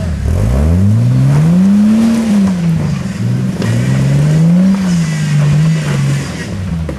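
Jeep TJ Wrangler engine revving up and down under throttle as it crawls over boulders. The revs climb to a peak about two seconds in, drop, and rise again around five seconds before easing off.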